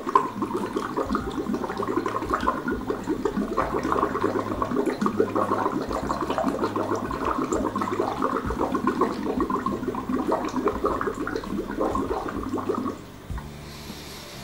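A person blowing through a plastic drinking straw into a glass of water, a continuous bubbling and gurgling that stops about a second before the end.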